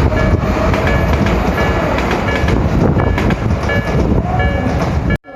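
Electric commuter train running past close by through a level crossing, wheels clacking over the rail joints, while the crossing's warning bell rings in a steady repeat, about three rings every two seconds. The sound cuts off abruptly near the end.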